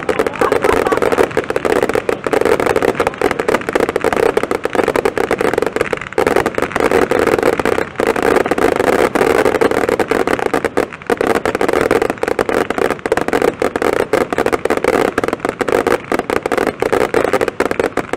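Forty-eight Pyroweb 'Bellis' F2 firework batteries firing at once: a loud, dense, unbroken barrage of shots and bursts, thinning only briefly a few times.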